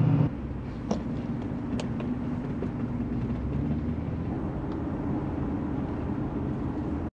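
A vehicle driving at a steady pace: an even low engine and road rumble, with a few faint clicks.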